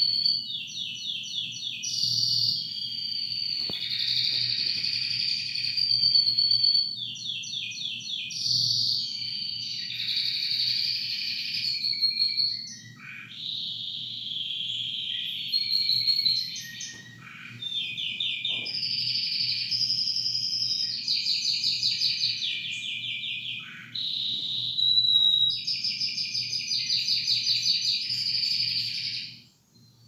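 Canary singing a long, near-continuous song of rapid rolling trills and chirps with short breaks, stopping just before the end.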